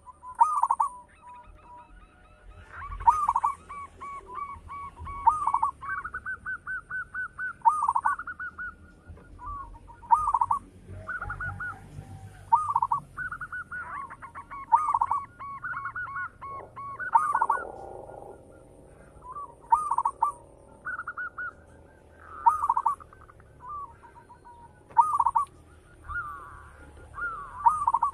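Zebra dove (perkutut) cooing: short phrases of rapid, pulsed coos repeated every second or two.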